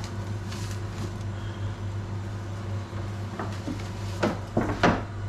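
Kitchen handling noise: a few sharp knocks and clatters in the second half, the last one loudest, over a steady low hum.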